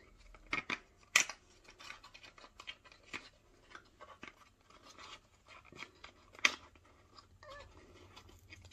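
Small paperboard lip-gloss box being handled and opened: scraping and crackling of the cardboard with a string of sharp clicks, the loudest about a second in and another around six and a half seconds.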